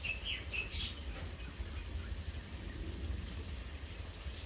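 A few short bird chirps in the first second, over a low steady rumble and a faint hiss.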